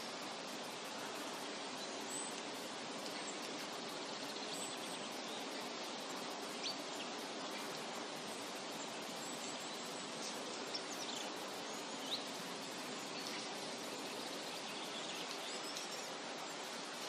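Forest ambience: a steady, even background hiss with a few short, high bird chirps scattered through it.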